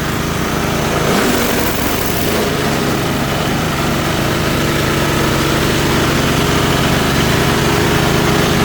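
An 8 hp diesel engine runs steadily, driving a chopper-grinder, with the machine's noise mixed in. The sound swells slightly about a second in.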